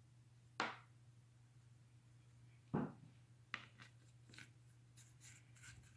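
Light knocks and clicks of painting tools and containers being handled on a work surface: three sharper knocks about half a second, nearly three seconds and three and a half seconds in, then a few fainter taps.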